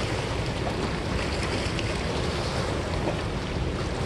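Wind buffeting the microphone over the steady rush of river water against a rocky bank, an unbroken noise with no distinct events.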